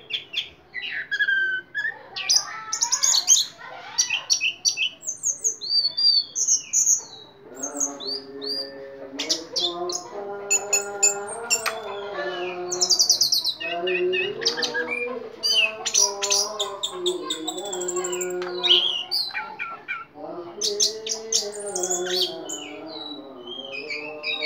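Caged orange-headed thrush singing in full song: a long run of quick, varied high whistles and chirps. Lower voice-like sounds run beneath it from about seven seconds in.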